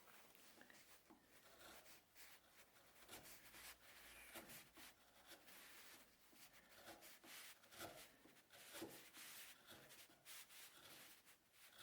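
Near silence, with faint, irregular scratching and rubbing strokes and light clicks.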